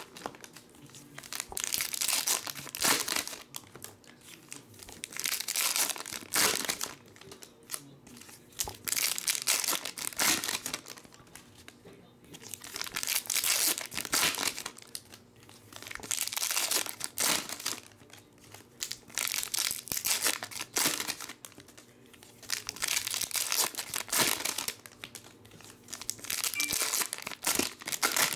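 Foil trading card pack wrappers crinkling as they are torn open by hand, one pack after another, in bursts every three to four seconds.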